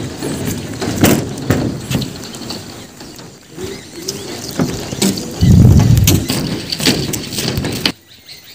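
Footsteps on a steel suspension footbridge, with knocks and rattles from the deck and cables, repeating about once a second. A loud low rumble lasts about a second past the middle, and the sound cuts off abruptly near the end.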